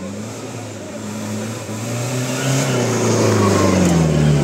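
Mahindra off-road jeep's engine revving hard on the trail, its pitch and loudness rising steadily over a few seconds.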